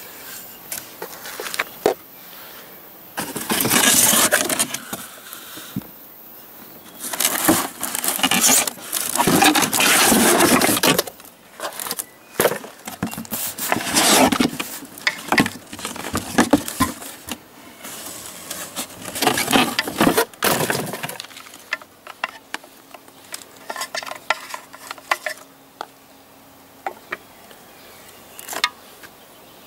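Cardboard packaging rustling, scraping and tearing as a boxed Tre Spade TC-12 electric mincer is pulled out of its box, in loud irregular bursts. Near the end the handling quietens to scattered light clicks and knocks as the mincer is set down.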